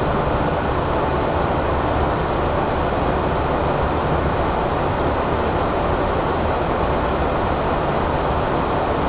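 Steady cockpit noise of an Airbus A340 climbing after takeoff: an even rush of airflow with engine hum underneath, unchanging throughout.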